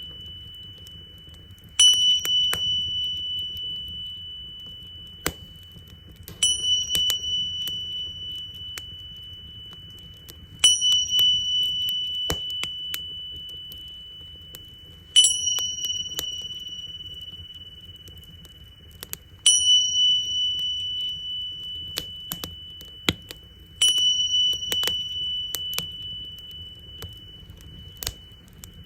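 Tingsha cymbals struck together six times, about every four and a half seconds, each strike leaving a high, pure ringing tone that fades slowly. Under the chimes, a wood fire crackles with scattered sharp pops.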